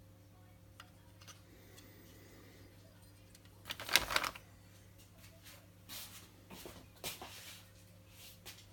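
Handling noises while a piston is measured: scattered clicks and knocks of parts and a measuring tool, loudest a short clatter about four seconds in, over a faint steady hum.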